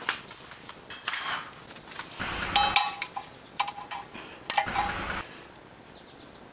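Metal hand tools and suspension parts clinking and rattling together in several short bursts, some with a brief metallic ring.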